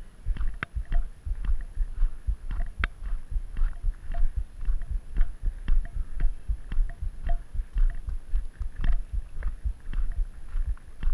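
Walking footsteps on a gravel road, a little under two steps a second, each a low thump with a short crunch of gravel.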